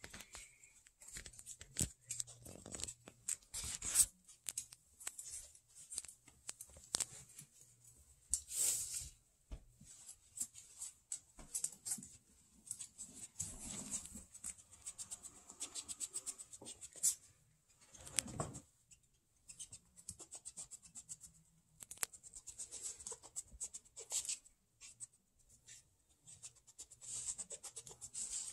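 Claws of a juvenile Virginia opossum clicking and scratching on tile, with scuffling and rustling as it paws at and noses into a terry-cloth towel. Many quick ticks throughout, with a few longer rustles.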